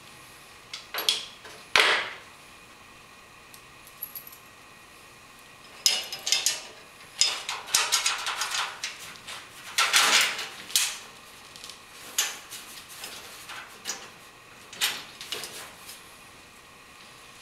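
Small metal hardware clinking and rattling by hand as bolts and nuts are fitted to mount a metal shelf on a sheet-metal backsplash. The sharp clicks and clatters come in irregular bursts, busiest from about six to eleven seconds in.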